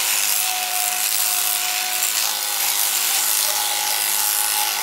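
Electric sheep-shearing clippers running steadily as they cut through a sheep's thick fleece, a constant buzz.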